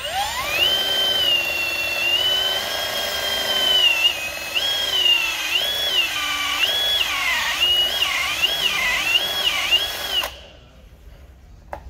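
Electric drill with a coring bit boring into a lead intercell connector bar on an industrial battery. The motor whine spins up, holds steady, then dips and recovers in pitch about six times as the bit bites and loads the motor, and cuts off abruptly about ten seconds in.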